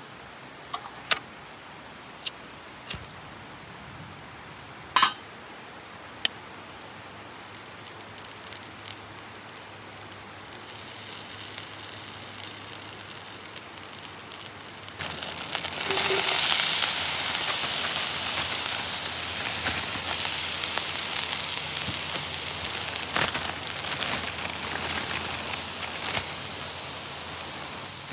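A few sharp clicks and clinks in the first seconds, then a sizzle that rises about ten seconds in and gets much louder about fifteen seconds in: hot oil and frozen mixed vegetables frying in a pan on a propane camp stove.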